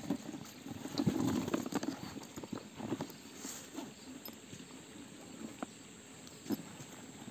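Irregular light clicks and taps with rustling, denser about a second in, from close handling among leafy vegetation.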